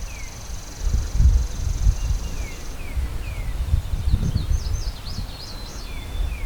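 Wind buffeting the microphone in gusts, with songbirds calling over it. There is a high steady trill in the first half and short falling whistled notes repeated every second or so. A quick warbling song comes in around four seconds.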